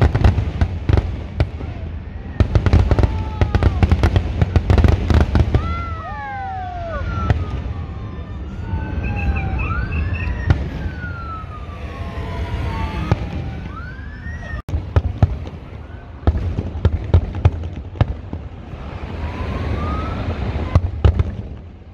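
Aerial fireworks display: clusters of sharp bangs and crackling from bursting shells. In the middle stretch many whistles glide up and down in pitch, then more quick bangs follow.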